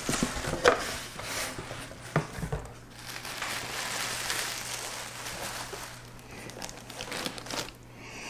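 Boot box being opened with a few sharp knocks in the first two seconds, then packing wrap crinkling and rustling as it is pulled off a pair of boots.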